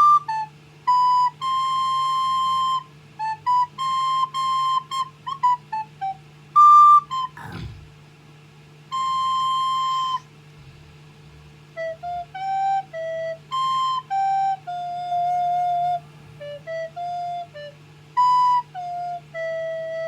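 A child playing a recorder: a slow melody of clear, separately tongued held notes in short phrases, with pauses of a second or more between some phrases.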